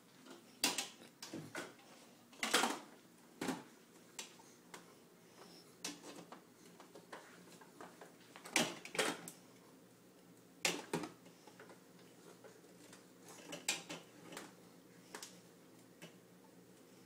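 Irregular clinks, clicks and knocks of containers and items being handled as a toddler rummages in a refrigerator, with the loudest knocks about two and a half seconds in and again around nine and eleven seconds.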